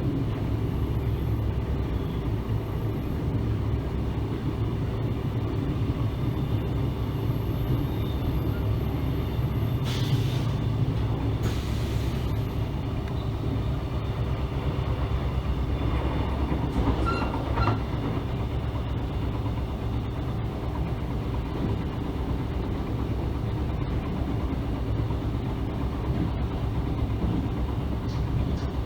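Mugunghwa-ho passenger train running along the track: a steady low rumble of the wheels on the rails. Two short hisses come about a third of the way in.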